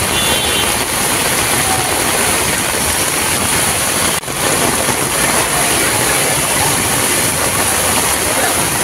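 Steady heavy rain on a flooded street mixed with the running engines of traffic stuck in the water. The sound briefly drops out about four seconds in.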